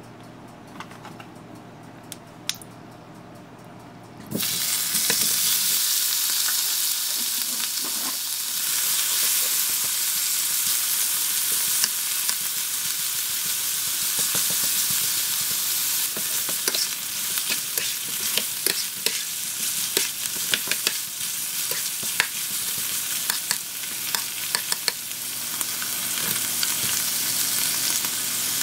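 Pieces of pork frying in hot oil in a nonstick pan: quiet at first, then about four seconds in a loud sizzle starts suddenly and keeps going. The meat is stirred with a spatula throughout, with frequent clicks and scrapes against the pan.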